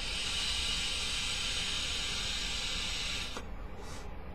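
Steady hiss of a long draw on a Joyetech Cubis sub-ohm vape tank, air rushing through the tank's airflow as the coil makes vapor. The hiss cuts off sharply a little over three seconds in.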